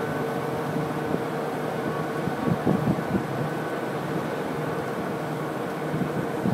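A rail train of continuous welded rail cars rolling slowly over a steel deck girder bridge behind a diesel locomotive, with a steady engine hum and a few heavier wheel knocks about two and a half seconds in.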